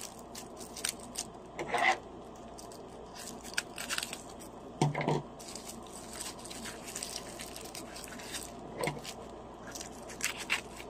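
Bubble wrap and plastic packaging being unwrapped by hand: scattered rustling, scraping and crinkling with small clicks and taps.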